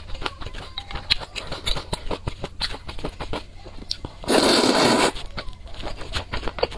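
Close-miked eating sounds: many short wet mouth clicks from chewing, then about four seconds in a loud slurp of noodles lasting under a second.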